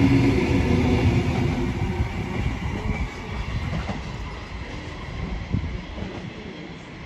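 Tangara electric multiple-unit train departing: motor and wheel noise loud as the last cars pass for the first two seconds, then fading as the train draws away, with a few wheel clacks over rail joints and points.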